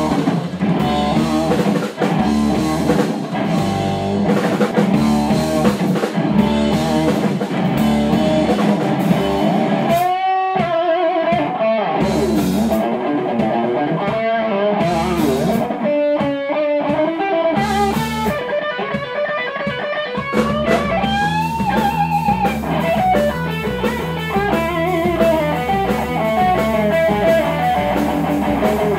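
Live psychedelic rock power trio playing: electric guitar lines over bass and drum kit. The drums and bass drop out briefly about ten seconds in and again near sixteen seconds, leaving the guitar alone, then the full band comes back in.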